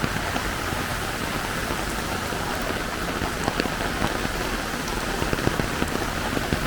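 Heavy tropical rain falling steadily, a dense hiss with many close drops ticking and splashing on surfaces.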